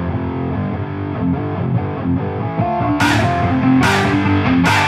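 Background rock music with guitar. About three seconds in, sharp beat hits come in, roughly one every 0.8 seconds.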